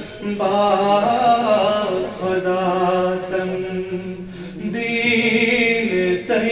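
A man's voice chanting in long, held melodic phrases into a microphone, with brief pauses for breath between phrases.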